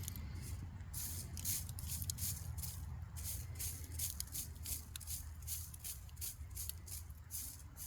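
Sand and small gravel scraping and rattling as it is sifted and picked through by hand, in irregular short gritty rustles several times a second.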